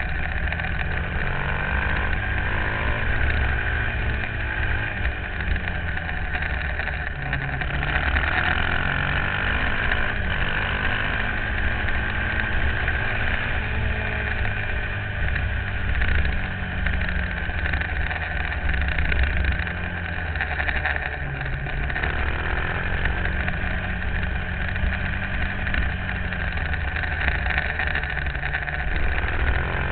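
Supermoto motorcycle engine running hard on the road, its pitch rising and falling again and again as it speeds up and slows through the bends, under heavy wind buffeting and road rumble on a camera mounted on the bike.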